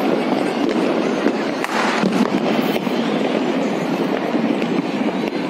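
Many fireworks and firecrackers going off at once, blending into a steady crackling din with sharp pops all the way through.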